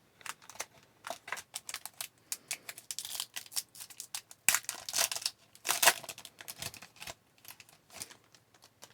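Hockey trading cards and a foil pack wrapper being handled: crinkling and tearing as a pack is opened, and the cards clicking and sliding against each other, loudest about four and a half and six seconds in.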